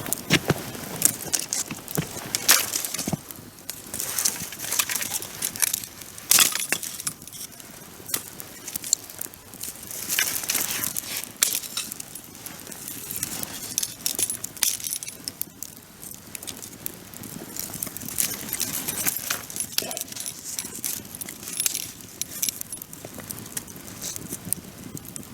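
Wood bonfire crackling, with irregular sharp pops and snaps over a soft hiss.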